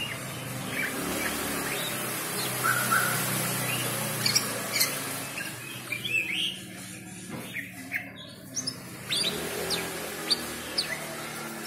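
Caged birds chirping: many short, sharp calls, some sliding in pitch, coming irregularly over a low steady hum.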